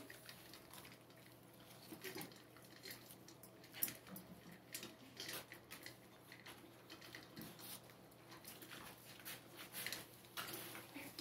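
Faint, irregular clicks and crunches of six-week-old boxer puppies eating dry kibble from stainless steel bowls.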